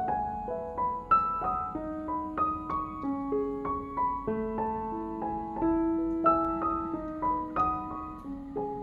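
Background piano music: a melody of single notes stepping up and down over held lower notes.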